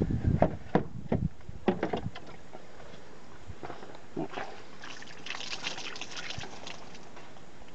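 A few knocks and bumps of handling, then about five seconds in water is poured out of a container and splashes onto the ground for a couple of seconds: the water being drained off washed chicken wings.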